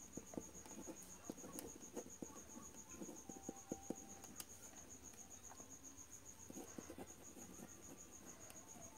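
Faint scratching of a pen writing on paper, under a steady, high-pitched, rapidly pulsing insect trill.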